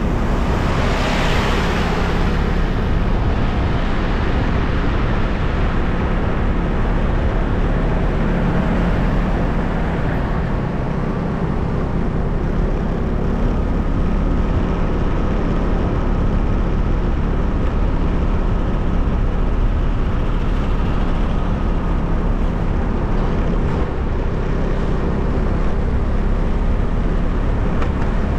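Steady rumble of a motor vehicle on the road, with a louder rushing swell about a second in.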